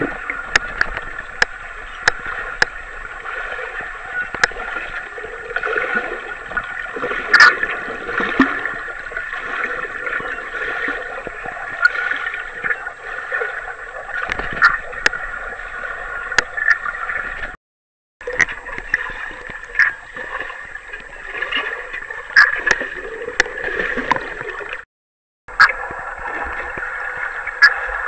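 Pool water heard underwater as a swimmer strokes past: a steady watery rush dotted with frequent sharp clicks and pops from the strokes and bubbles, over a faint high whine. The sound cuts out completely twice for about half a second.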